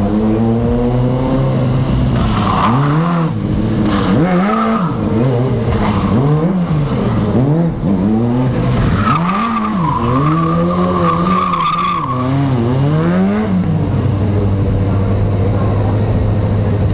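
Car engine revved hard up and down over and over, about once a second, with tyres squealing and skidding through the middle stretch; near the end it settles into a steady drone.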